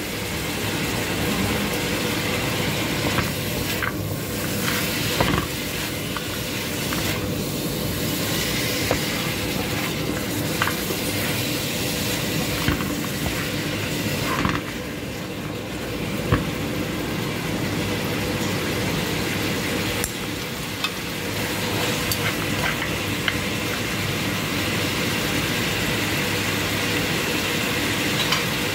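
Pork ribs with corn and bell pepper sizzling in a frying pan. A spatula stirs them, scraping and now and then clicking against the pan.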